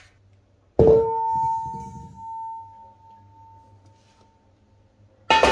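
A metal gas bottle clanks against the metal welding trolley as it is set in, with a clear ringing tone that fades over about three seconds. A second, harsher clang with a jangle of ringing tones comes near the end.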